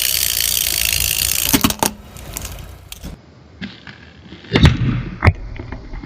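Objects cracking and snapping as they are crushed, after a steady hiss in the first second and a half. The loudest sharp cracks come about four and a half and five seconds in.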